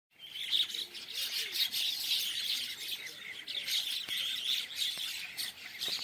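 A large flock of birds chirping and chattering all at once, many overlapping short calls in a dense, unbroken chorus.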